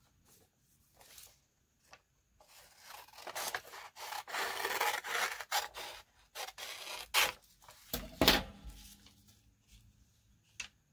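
Paper being rubbed and scraped against paper and the tabletop for a few seconds, then several sharp crackles of paper being handled, the loudest about eight seconds in.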